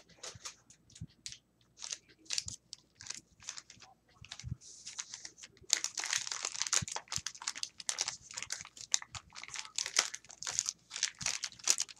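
A printed craft bag crinkling as it is unfolded and handled. At first there are scattered crackles, and from about halfway through the crinkling is dense and continuous.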